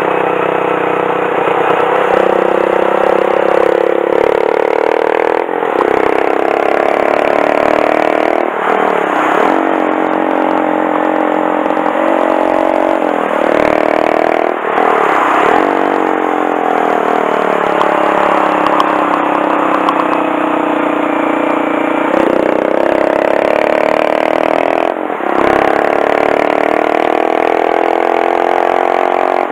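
Honda Monkey 125's air-cooled single-cylinder engine under way on a winding road, its pitch rising and falling repeatedly as the rider accelerates and eases off, with a few brief dips in sound along the way.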